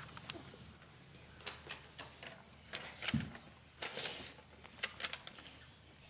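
Sheet of construction paper rustling and crackling in small irregular bursts as it is handled, with a soft thump about three seconds in.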